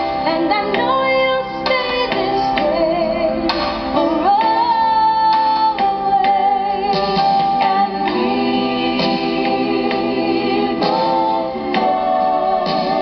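A pop song with a female lead voice singing over guitar and backing, playing continuously as the test signal in an audio test of the iTour-pop player.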